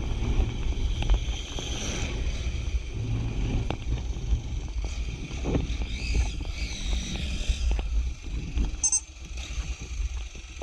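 Wind buffeting the microphone of a motorcycle rider's camera while riding, a gusty low rumble, with the motorcycle running underneath and a few small knocks.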